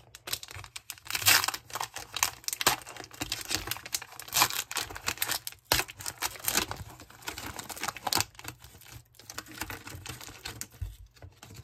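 Foil wrapper of a Pokémon booster pack crinkling and rustling in irregular crackles as it is torn open and handled.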